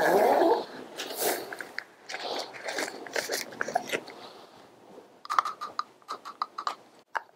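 Gloved hands handling a wooden tongue depressor, its paper wrapper and a plastic specimen cup while a droppings sample is scooped into the cup. A loud rustle comes at the start, scattered rustles and scrapes follow, and a run of small sharp clicks comes about five seconds in.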